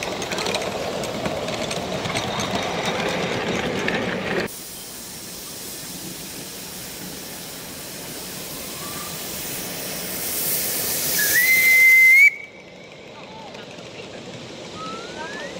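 Live-steam model locomotive on 5-inch gauge track, with steam hissing throughout. Past the middle the hiss swells and a steam whistle blows, its pitch rising, then cuts off suddenly.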